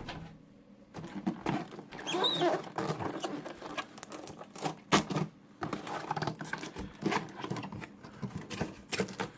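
Cardboard box and packaging being handled as the jigsaw is unpacked: irregular scraping, rustling and light knocks, with a brief squeak of packing material rubbing about two seconds in and a sharper knock about five seconds in.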